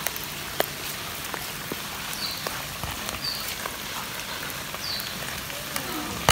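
Steady rain falling on wet brick paving: an even hiss with scattered drop ticks. A few short, faint high chirps sound over it about two, three and five seconds in.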